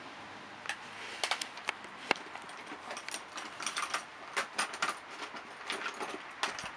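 Rummaging through a container of makeup: plastic cases, tubes and brushes clicking and clattering against each other in irregular bursts.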